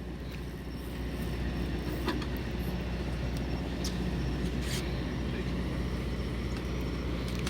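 Steady low drone of a fishing boat's onboard machinery running, with a few faint clicks.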